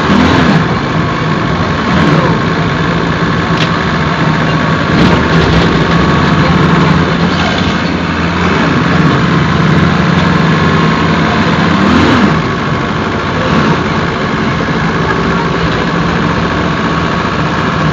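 Mercedes-Benz OF-1721 bus's OM-924LA four-cylinder turbodiesel engine running steadily. Its pitch briefly rises and falls a few times.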